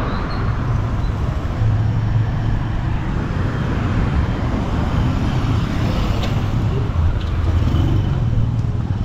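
Road traffic noise: a steady low rumble of cars moving along a city street.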